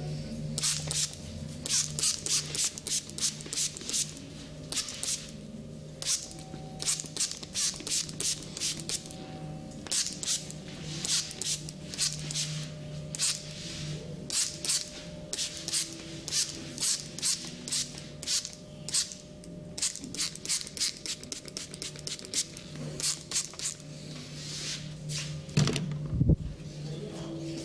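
Hands massaging hair and skin: quick, irregular rubbing and patting strokes, several a second, over a steady low hum, with a louder thump near the end.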